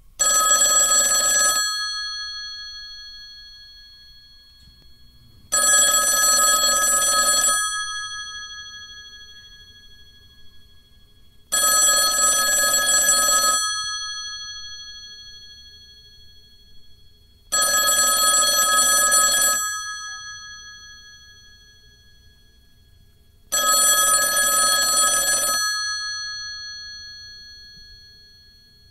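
Telephone bell ringing: five rings of about two seconds each, one roughly every six seconds, each leaving a bell tone that fades away before the next ring.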